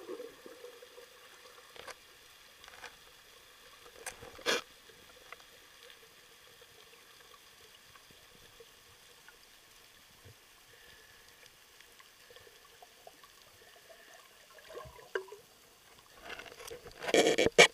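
Underwater sound heard through a camera's waterproof housing: a faint steady water hiss with scattered knocks and clicks, one sharper knock about four and a half seconds in, and a loud burst of water noise and splashing near the end.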